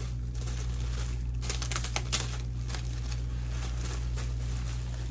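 Plastic packaging crinkling and rustling in short, irregular bursts as a jacket is handled and unwrapped.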